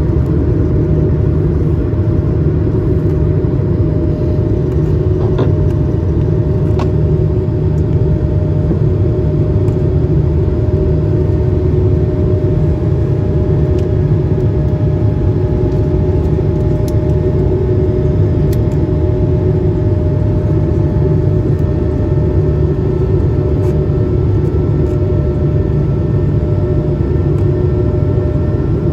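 Cabin noise inside an Airbus A220-300 powered by Pratt & Whitney PW1500G geared turbofans: a loud, steady rumble with steady engine tones, and a fainter higher tone slowly rising.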